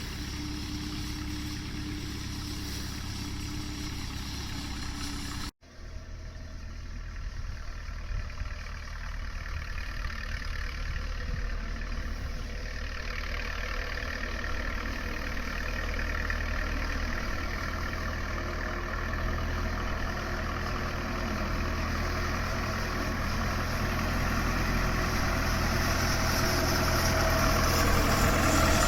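Standard Fordson tractor's four-cylinder engine running steadily. After a cut about five seconds in, the engine sound grows gradually louder towards the end.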